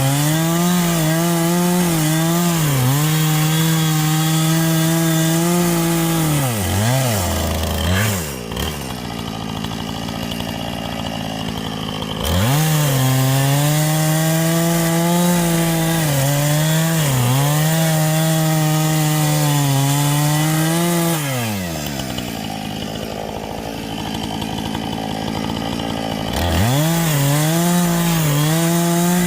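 Husqvarna chainsaw cutting through black walnut at full throttle, its engine note sagging briefly every couple of seconds as the chain loads up in the wood. Twice it drops to idle for a few seconds and then revs back up into the cut.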